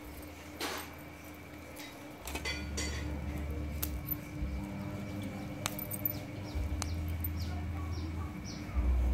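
Scattered light clicks and taps as garlic, shallots and dried chillies are handled on a wooden chopping board, over a low rumble that swells near the end. A small bird chirps repeatedly in the background during the second half: short falling chirps about twice a second.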